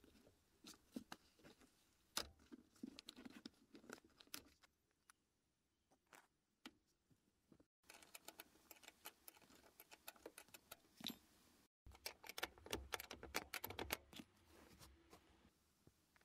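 Faint, scattered clicks and metallic clinks of a spanner working the bolt of a car seat's floor rail, with a denser run of clicks near the end.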